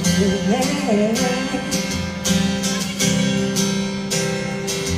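Pop ballad's instrumental break: acoustic guitar strumming chords about once a second over a bass line. A female singer's held, wavering note fades out in the first second or two.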